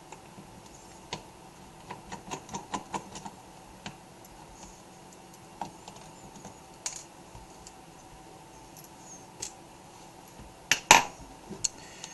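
Light scattered clicks and taps of a small Phillips screwdriver and fingers working the screws out of a laptop's screen bezel, with a quick run of clicks about two to three seconds in and a sharper click near the end.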